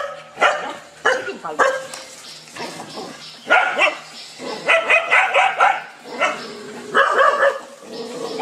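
Dog barking repeatedly at a large lizard, single barks and quick runs of barks with short gaps between.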